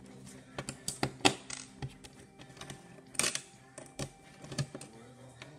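Light metallic clicks and taps from fingers working the screws and sheet-metal cover of a desktop DVD drive. There are about half a dozen separate clicks, the sharpest about a second in and again about three seconds in.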